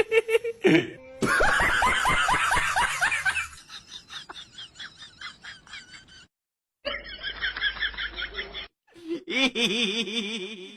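People laughing in quick repeated bursts across several short clips cut together, with abrupt cuts and a brief silent gap a little past the middle.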